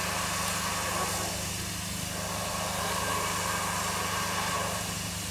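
A steady low mechanical drone, engine-like, with a faint hiss over it and no distinct beats or impacts.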